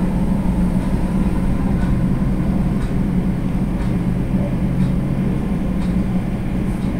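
Chopped onions and whole spices frying in oil in a karahi on a gas burner, sizzling steadily over a constant low hum.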